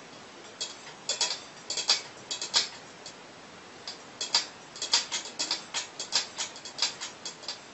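Cat pawing inside a stainless steel bowl: quick, irregular metallic clinks and scrapes of claws and paw against the steel. There is a short pause about a third of the way in, then a denser run to near the end.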